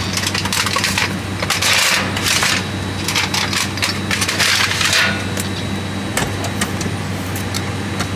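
Aluminium foil meal dishes crinkling and scraping as they are slid into the metal racks of an aircraft galley oven, in two long spells, then a few sharp clicks near the end as the oven door latch is turned. A steady low hum runs underneath.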